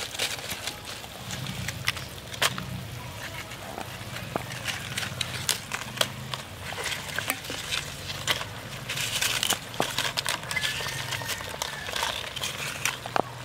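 Tamarind curry bubbling at a boil in a clay pot while crisp fried papads are dropped in, with many sharp crackles and clicks from the brittle pieces.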